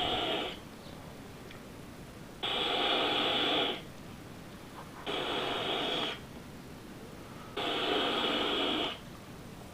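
Puffs on a vape: air drawn through a dual-coil rebuildable dripping atomizer as the mod fires at 65 watts, each a steady hiss of about a second that starts and stops sharply. One ends just at the start, then three more follow a few seconds apart.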